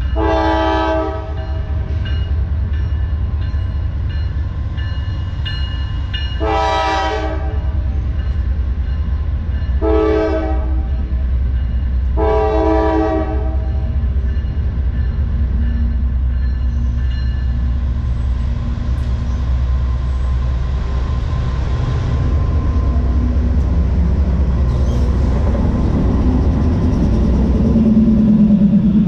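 Norfolk Southern diesel freight locomotive sounding its horn in the long, long, short, long grade-crossing pattern as it approaches, over the steady deep rumble of the train. The rumble grows loudest near the end as the locomotive passes close by.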